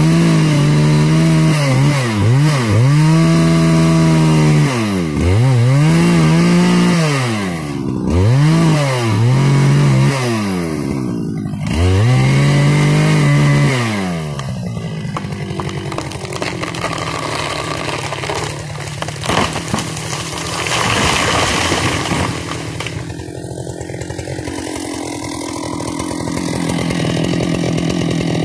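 Husqvarna 395 XP two-stroke chainsaw cutting into a conifer trunk, revving to full throttle and dropping back about six times in the first fourteen seconds, with sawdust spraying from the cut. The engine then drops to a low idle, and a spell of crackling noise about twenty seconds in goes with the tree coming down.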